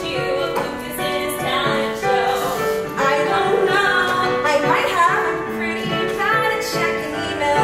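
A woman singing a musical theatre number with live keyboard accompaniment.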